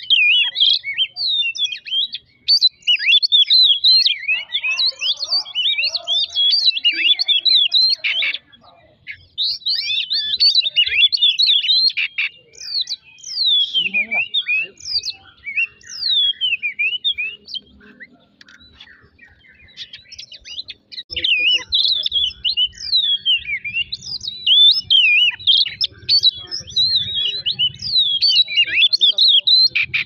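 Oriental magpie-robin singing: rapid, varied whistles and chirps in long bursts, with a short break about eight seconds in and a sparser stretch in the middle.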